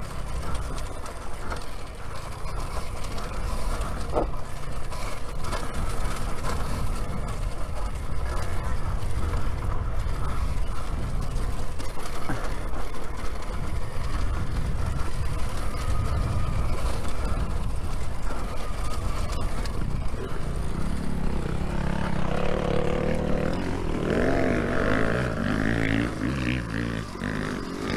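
Riding an Alta Redshift MXR electric dirt bike off-road: heavy wind buffeting and rumble on the rider's camera microphone, with a faint steady motor whine under it. In the last several seconds a louder sound of several rising and falling pitches joins in.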